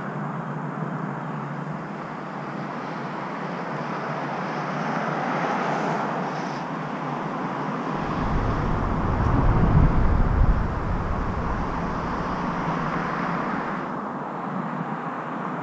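Steady rushing noise of wind and bicycle tyres on a concrete overpass deck, with road traffic below. About eight seconds in, a deeper rumble swells and fades about three seconds later.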